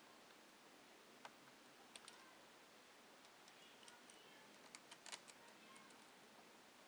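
Near silence with a few faint clicks: one about a second in, one about two seconds in, and a small cluster near five seconds. These are a small screwdriver working a screw out of the metal frame that holds a laptop's LCD screen.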